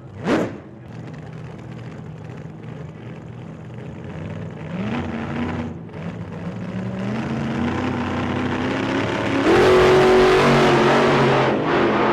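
A car engine running and revving up in steps, rising in pitch about five seconds in and again near seven seconds, then at its loudest from about nine and a half seconds on.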